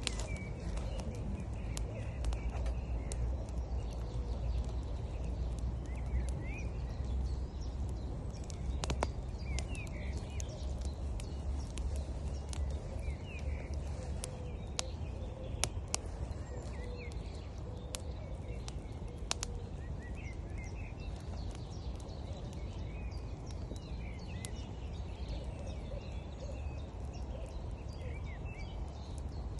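Wood fire crackling with frequent sharp snaps and a few louder pops, over a steady low rush of river water, with small birds chirping.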